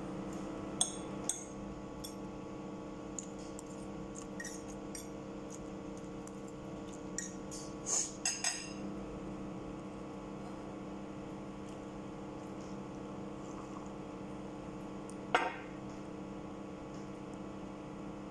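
Cutlery and dishes clinking during a meal: a few sharp clicks near the start, a quick cluster about eight seconds in and a single louder one about fifteen seconds in, over a steady hum.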